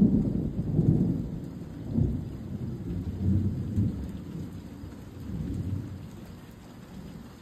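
Thunder rolling low, loud at first, then swelling a few more times as it fades away, over a faint hiss of rain.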